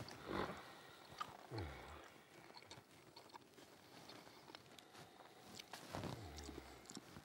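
A man chewing a big mouthful of pastry, with small wet mouth clicks and a few short, low grunts that fall in pitch.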